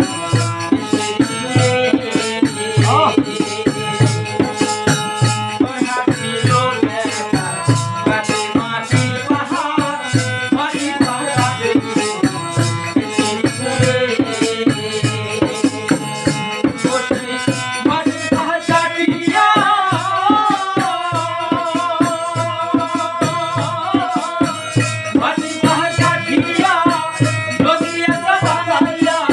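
Bangla folk music: a rope-laced dhol barrel drum played by hand in a steady, even rhythm over a harmonium's held chords. Men's voices sing a wavering melody, most prominent from about two-thirds of the way in.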